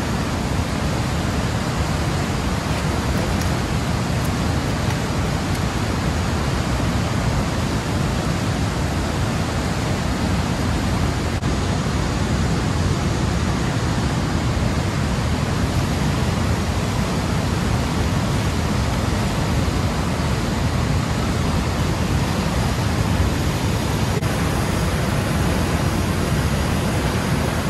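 Steady, unbroken rushing of water discharging through a river dam's gates and churning in the tailwater below, heavy in the low end.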